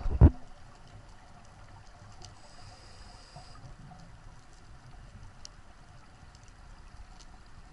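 Underwater ambience picked up by a camera in its housing on a reef dive: a sharp knock right at the start, then a faint, steady low rumble and hiss with a few soft ticks.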